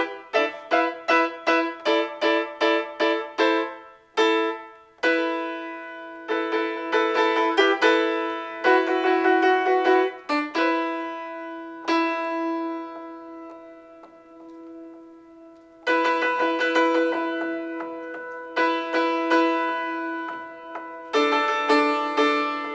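Solo piano improvisation in the middle and upper register: a fast run of repeated struck notes at first, then chords left to ring and fade away, with new chords struck twice in the second half.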